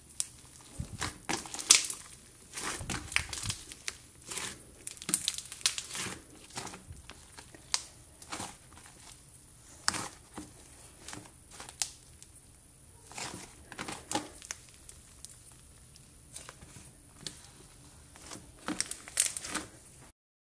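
Thick white fluffy slime being squeezed, pressed and poked by hand, giving irregular crackling and crinkling pops in short clusters. The sound cuts off just before the end.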